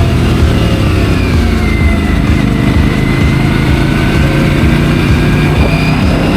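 Aprilia RS 457 parallel-twin engine running while riding, its pitch easing down through the middle and building back up near the end as the revs fall and rise again.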